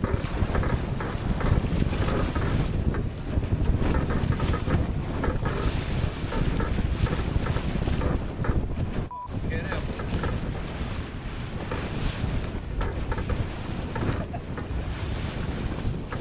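Strong wind buffeting the microphone over choppy water rushing and splashing around a small flat-bottomed sailing skiff under way, with a brief break in the sound about nine seconds in.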